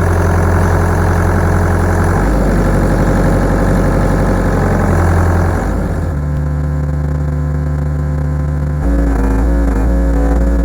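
Volvo ECR88 mini excavator's diesel engine running under hydraulic load as the bucket and blade push down to lift the machine, its note shifting a few times as the load changes.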